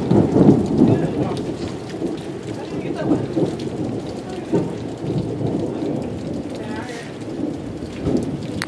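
Thunderstorm: steady rain with a low, rolling rumble of thunder, loudest in the first second or so and slowly dying away, swelling slightly again near the end.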